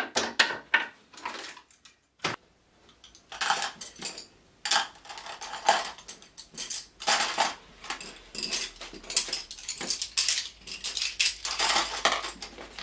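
Small hard objects clattering and clinking as they are handled and put away while a room is tidied: many quick, irregular knocks, with a brief pause about two seconds in.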